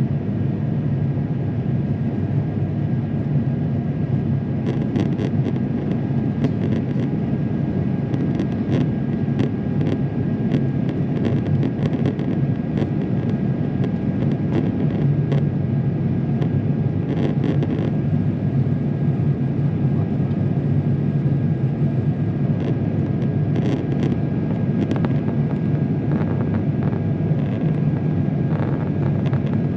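Steady cabin noise of an Airbus A350-900 in flight: a low rumble from its Rolls-Royce Trent XWB engines and the airflow, with occasional faint ticks.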